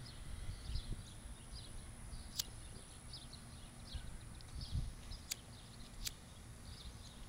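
Outdoor ambience: small birds chirping in short, irregular high notes over a low rumble of wind or handling, with three sharp clicks spread through it.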